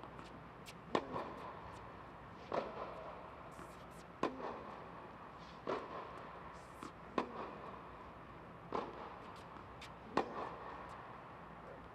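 Tennis ball struck with rackets in a rally, a sharp pop about every second and a half, seven in all, each with a short echo from the indoor hall; fainter ticks fall between the hits.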